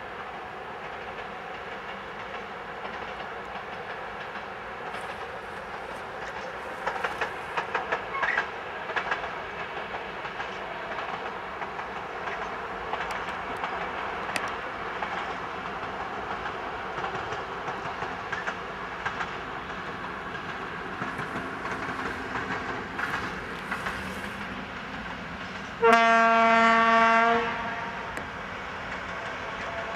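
Diesel locomotive hauling a single open freight wagon, its engine running steadily and its wheels clicking over rail joints for a couple of seconds about a quarter of the way in. Near the end the locomotive's horn sounds one loud blast of about a second and a half.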